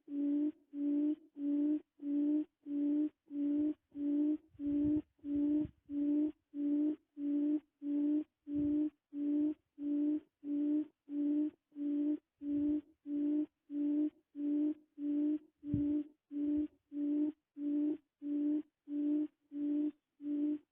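A low steady tone beeping in an even rhythm, about three beeps every two seconds, every beep the same pitch and length.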